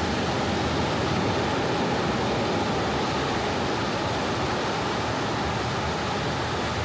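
Soft ocean waves washing on a beach, heard as a steady, even hiss with no separate wave breaks standing out.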